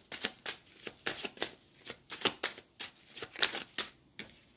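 A tarot deck being shuffled by hand: a quick run of crisp card slaps and flutters, about three or four a second, that stops about four seconds in.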